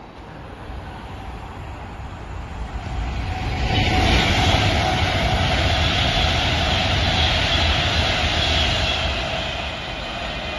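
A train passing through the station at speed. The rumble and rush build from about a second in, jump up sharply near four seconds into a loud hissing roar of wheels on rail, and ease off near the end.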